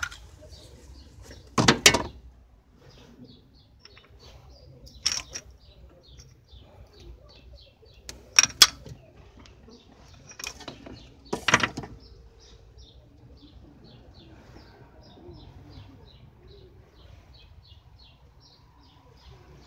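A few sharp metallic knocks of hand tools against the bare cylinder head of an Isuzu 4JA1 diesel, the first near two seconds in the longest and loudest, others near five, eight and eleven seconds. Behind them a bird repeats short high chirps, two or three a second.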